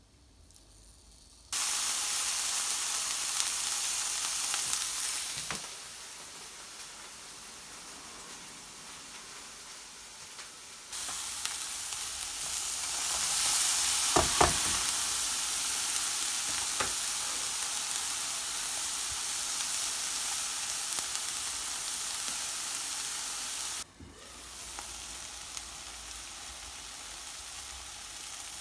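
Food frying in a pan, a steady sizzle that steps louder and quieter suddenly several times, with a few short knocks of a utensil against the pan about halfway through.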